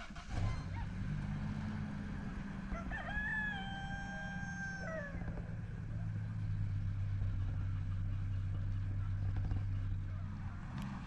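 A rooster crows once, a single long call of about two seconds starting about three seconds in, over a steady low hum.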